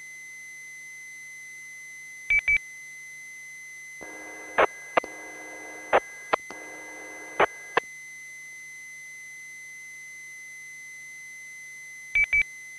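Amateur radio feed between transmissions: a steady faint high tone, with a burst of three quick beeps about two seconds in and another near the end. In the middle, a few seconds of buzzing hum broken by sharp clicks.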